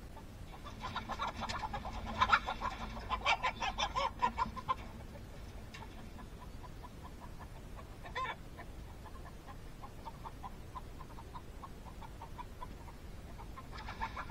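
Chickens clucking. A loud run of rapid clucking fills the first few seconds, followed by a string of softer repeated clucks with one sharper call about eight seconds in, and clucking picks up again near the end.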